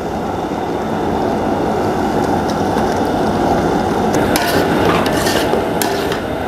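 Metal ladle stirring a thick, chunky mixture of tomato, pineapple and dates in a large aluminium pot, scraping and clinking against the pot sides from about four seconds in, over a steady rushing noise.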